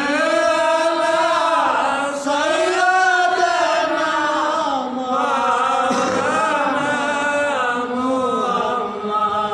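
A man's voice chanting in a long, drawn-out melodic style, holding notes and sliding up and down in pitch, with short breaks for breath.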